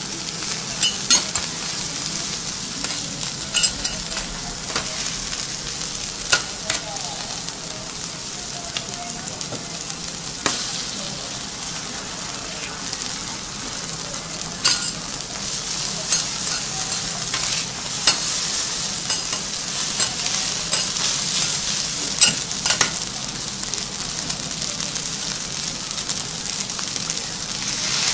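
Egg, noodles and asparagus sizzling on a flat iron teppanyaki griddle, a steady hiss that grows a little louder in the second half. It is crossed by about a dozen sharp clicks of metal spatulas on the iron.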